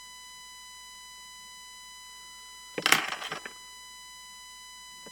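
A quick run of sharp plastic clicks and rattles about three seconds in, as the small switch assembly is handled and worked by hand. Under it runs a steady faint high-pitched whine.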